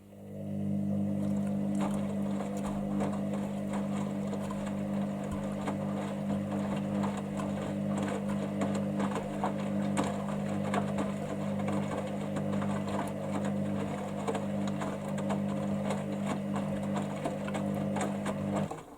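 Hoover Dynamicnext washing machine's drain pump running steadily with a low hum, water gurgling and rattling through it as the drum empties at the end of the main wash. It cuts out near the end.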